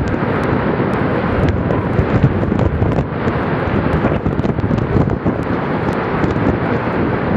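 Gale-force gusting wind buffeting the microphone in a loud, rumbling roar that swells and eases every second or two, with crackles from the wind hitting the mic, over the rough surf of Lake Superior.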